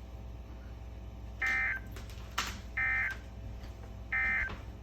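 Emergency Alert System end-of-message data bursts: three short, identical, buzzy digital bursts about a second apart. This is the SAME 'NNNN' code that closes the alert. A steady low hum runs underneath.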